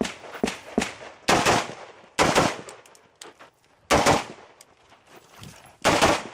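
A string of gunshots at uneven intervals: a few fainter cracks in the first second, then four loud reports spaced about one to two seconds apart, each dying away quickly.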